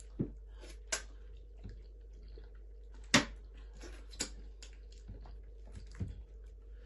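Hand-eating sounds of sticky starch fufu: a few short, sharp wet smacks and clicks from the lips and the dough, with soft chewing between them. The loudest smack comes about three seconds in.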